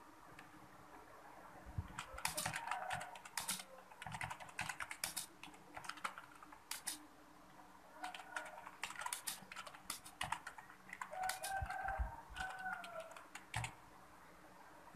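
Typing on a computer keyboard: uneven runs of quick keystroke clicks with short pauses between them, starting about two seconds in and stopping shortly before the end.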